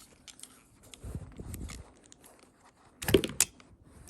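Plastic and metal handling of a fingerprint trigger lock on a handgun: scattered small clicks and rubbing, then a sharp cluster of clicks about three seconds in as the lock opens after a fingerprint read, and a dull thump at the end.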